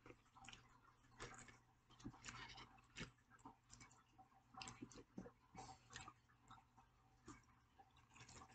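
Faint, irregular chewing of crunchy fried breaded popcorn shrimp, close to the microphone, over a steady low hum.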